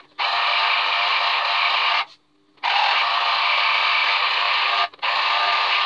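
Electric citrus juicer's motor whirring as orange halves are pressed onto its spinning reamer. It stops for about half a second around two seconds in and again briefly near the end, starting and stopping as the fruit is pressed down and lifted.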